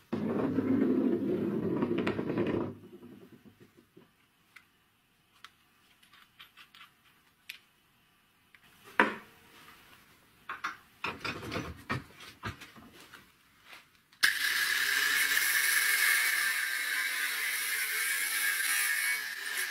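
Angle grinder with a cutting disc cutting through a threaded metal pipe fitting clamped in a vise, a loud, steady high-pitched grinding that starts about 14 seconds in. Before it come scattered light clicks and knocks of the fitting being handled and set in the vise, and at the start a loud low scraping for nearly three seconds.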